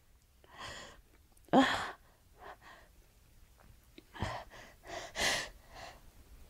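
A woman's short, noisy breaths and sniffs between sneezes in an allergic sneezing fit. There is a sharp, louder one about a second and a half in, and a run of short breaths in the last few seconds.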